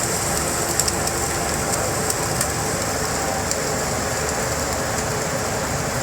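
Hot oil pouring in a continuous cascade over chicken in a waterfall frying machine: a steady sizzling rush with a few sharp crackles about a second and two seconds in.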